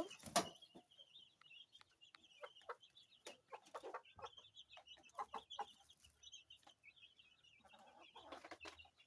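Chickens clucking faintly and chicks peeping steadily. A door knocks shut just after the start.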